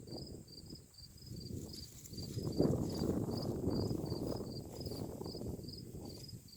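Insects chirping steadily in a high, even pulse of about three to four chirps a second, over a low rumbling noise that grows louder about two and a half seconds in.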